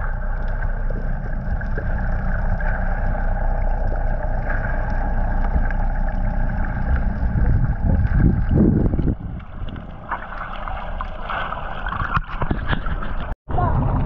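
Steady underwater hum of a fishing boat's machinery with water moving around the camera, louder for a moment about eight seconds in and cutting out briefly near the end.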